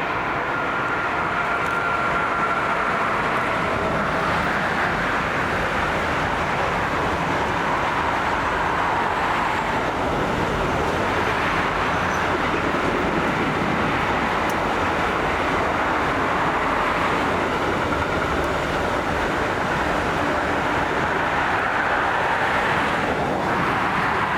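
A train passing, a steady loud rolling noise of wheels on rails that holds without letup, with a faint high steady tone in the first few seconds.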